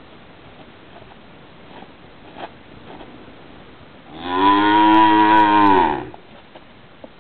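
A cow mooing once: one long, low moo of about two seconds, starting about four seconds in, its pitch rising slightly and falling back at the end.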